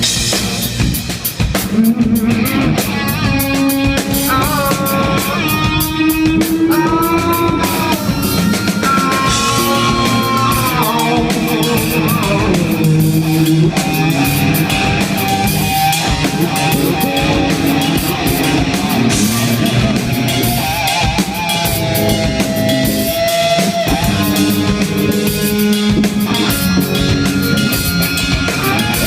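Live rock band playing loudly: an electric guitar lead with bent, sliding notes and vibrato over a driving drum kit.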